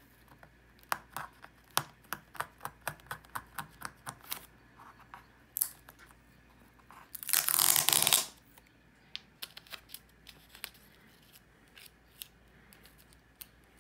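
Clicks and taps of packaging and a plastic disc case being handled, with one loud noisy burst of packaging handling about a second long near the middle, then only a few scattered clicks.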